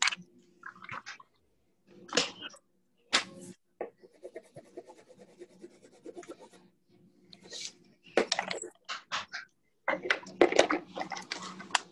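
Marker or pen on paper: short scratchy strokes and a run of quick scribbling as small shapes are drawn and colored in, busier near the end.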